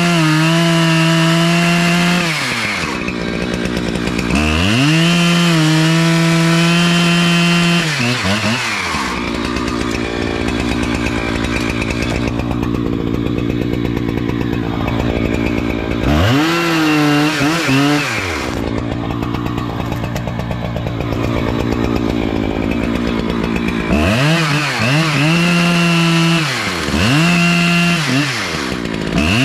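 Petrol chainsaw cutting into a sycamore trunk, held at high revs under load. The engine pitch drops and revs back up several times between cuts.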